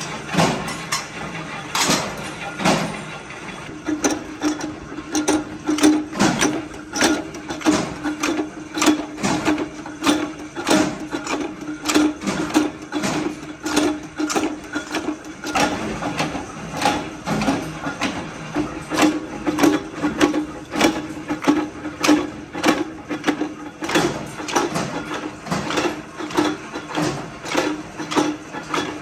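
Flywheel-driven mechanical power press punching washers out of scrap steel compressor shells: sharp metal strikes repeating about one to two times a second. A steady machine hum comes in about four seconds in, and before that there is metal clanking from the steel shells.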